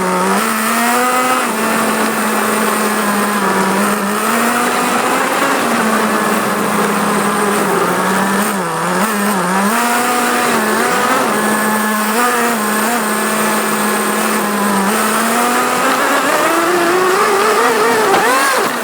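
Motor of a radio-controlled car whining as it drives, over a steady hiss of drivetrain and wheels. The pitch dips and recovers several times with the throttle, then rises near the end.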